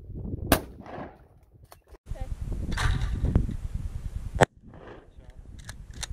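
Two shots from a 20-gauge Remington 870 Express pump shotgun, about four seconds apart, each a sharp crack. Wind rumbles on the microphone between them.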